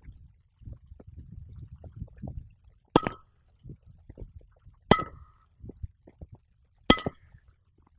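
Tennis balls struck on volleys with a Sweet Spotter training racket: three sharp hits about two seconds apart, each with a short metallic ring.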